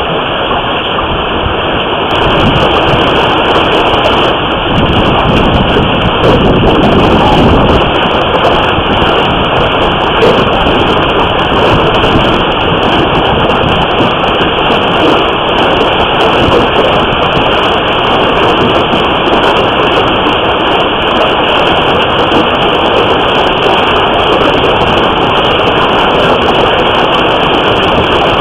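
Heavy hailstorm: hailstones and rain pelting the house and parked cars in a dense, continuous din of countless sharp ice hits, which thickens about two seconds in.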